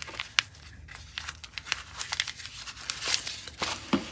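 Pink tissue paper crinkling and rustling in a cardboard box as items are handled. There are many short crackles throughout and a busier flurry about three seconds in.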